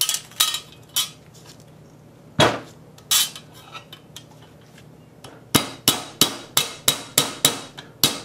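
Rubber mallet knocking on the bent steel backing plate of a 1930 Briggs & Stratton FH engine laid on a flat steel block, straightening it. A few separate metallic knocks come in the first few seconds, then a quick, even run of about ten blows, roughly three a second, over the last three seconds.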